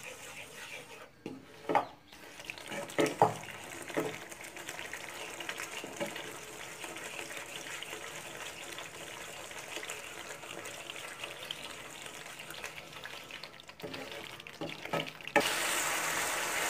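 Tomato-onion masala sizzling in oil in a nonstick pan as a wooden spatula stirs and scrapes it, with a few sharp knocks of the spatula against the pan in the first few seconds. The masala is being fried until the oil separates, and the sizzle grows louder near the end.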